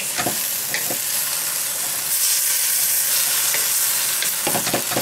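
Vegetables with a little water and oil sizzling steadily in a carbon-steel wok over high heat. A bamboo spatula scrapes and stirs them against the wok a few times just after the start, then in quicker, regular strokes near the end.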